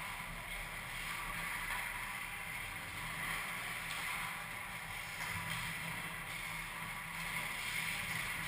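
Ice skate blades scraping and gliding on ice as several young players skate, a steady hiss, over a steady low hum.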